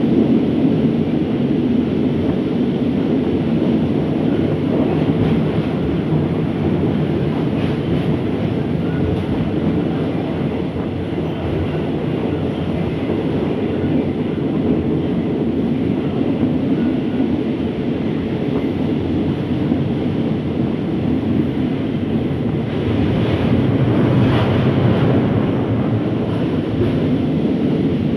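A passenger train running along the track, heard from an open carriage window: a steady rumble of wheels and carriage with rushing air. It swells a little louder and brighter about 23 seconds in.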